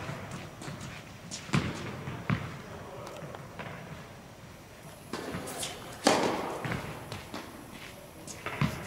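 Tennis balls struck by rackets and bouncing on an indoor court: several sharp pops that echo in the hall, the loudest about six seconds in.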